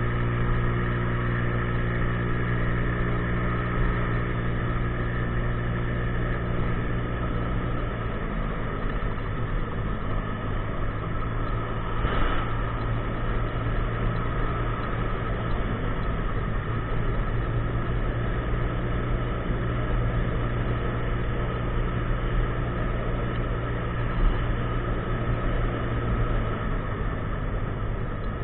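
50cc scooter engine running steadily under way, over road noise; its steady low note shifts about eight seconds in.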